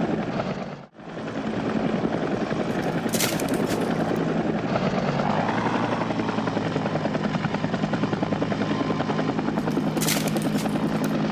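Helicopter running steadily, its rotor giving a fast, even chop over the engine drone. The sound drops out briefly about a second in.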